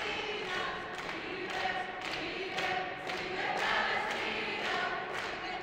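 A crowd of protesters singing a song together.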